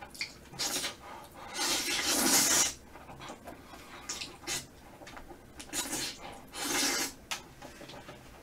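A person slurping flat glass noodles from a bowl of spicy braised chicken: several hissing slurps, the longest about two seconds in, with quieter gaps between.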